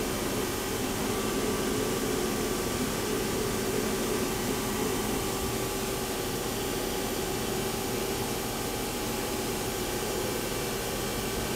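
Nakamura-Tome WTS-150 CNC turning center running: a steady machine hum with several steady whining tones.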